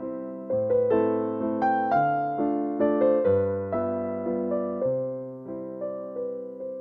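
Background music: a soft electric piano playing a gentle melody, one note after another at an even pace.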